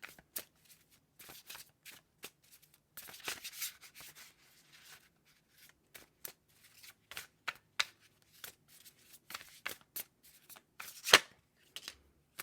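Tarot cards being shuffled by hand: a run of quick card flicks and slides, with a denser stretch about three seconds in and one sharper snap near the end.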